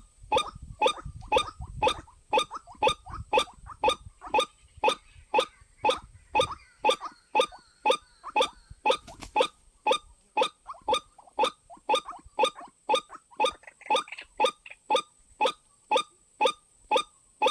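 White-breasted waterhen (ruak-ruak) calling a long, even series of short notes, about two to three a second. It is played as a lure call for bird trapping.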